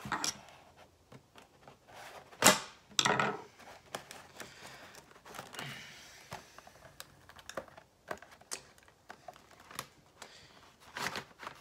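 Cardboard toy box being handled while its packing tape is picked at: scattered fingernail clicks and scratches, with a sharp knock about two and a half seconds in and a short rustle right after it.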